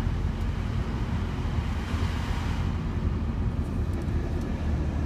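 Cabin sound of a 1991 Chevrolet Corvette with its V8 idling and the heater blower fan running: a steady low rumble under a rush of air, with a few faint clicks of the climate-control buttons.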